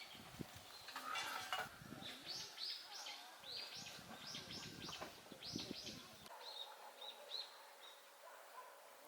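A small bird chirping outdoors: a quick series of short, high chirps, several a second, that thins out to a few spaced calls and stops near the end.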